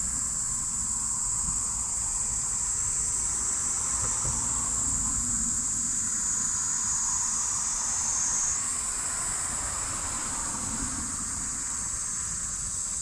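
An insect chorus making a steady high-pitched buzz, which dips slightly in pitch for a few seconds midway, over a low rumble.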